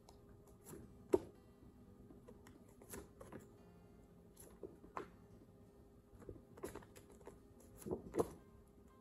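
Short, quiet single letter sounds said by a teacher, phonics sounds repeated in quick bursts, mixed with light taps and rustles of stiff card flashcards being handled and flipped. A faint steady tone runs underneath.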